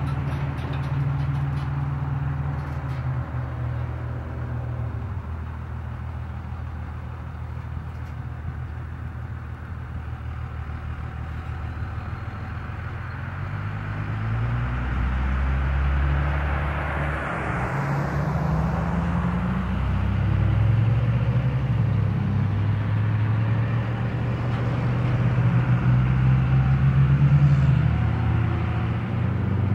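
Road traffic passing, with one vehicle going by close about halfway through, over a steady low engine drone that gets louder toward the end.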